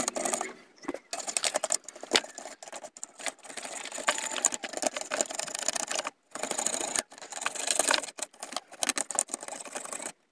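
A toothbrush dipped in solvent scrubbing a dirty set-top box circuit board: fast, scratchy brushing strokes, broken by short pauses about half a second in and around six and seven seconds in.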